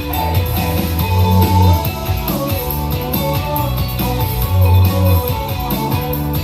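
A song with guitar, drums and a strong bass line, played through a Pioneer PBM5 portable party speaker at the default EQ with bass boost on.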